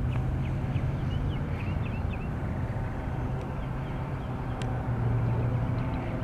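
A steady low engine hum, swelling a little about five seconds in, with faint short high peeps from mallard ducklings in the first half.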